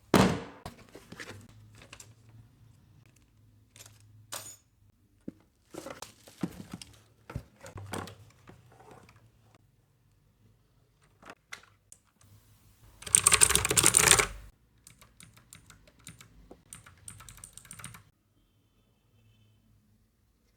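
T-Dagger mechanical keyboard being typed on: scattered keystroke clicks and short runs of keys, with one fast, loud flurry of typing about thirteen seconds in. The typing stops about eighteen seconds in.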